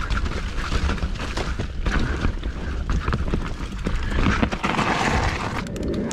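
Mountain bike clattering and rattling over rough, rocky ground, with wind buffeting the microphone as a heavy rumble. A longer rush of noise runs from about four to five and a half seconds in.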